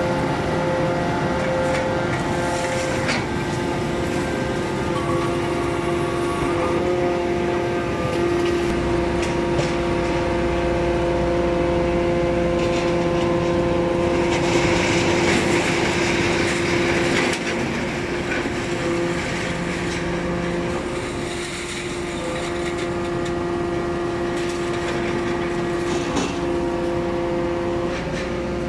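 Hydraulic power unit of a scrap-metal baling press: its electric motors drive the hydraulic pumps with a steady whine. A deeper hum joins about nine seconds in, and a hiss swells for a few seconds around the middle.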